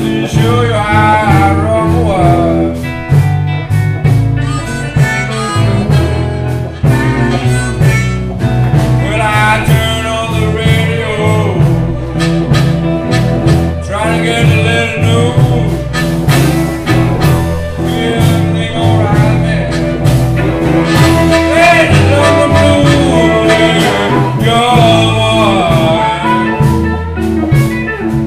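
Blues harmonica playing a solo of bent, wavering notes over a live blues band with electric guitars and a steady beat.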